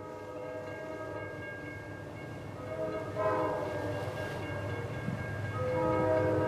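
Amtrak P42DC locomotive's Nathan K5LA five-chime air horn sounding a sustained chord, growing louder, with a brief swell about three seconds in and a louder blast beginning near the end.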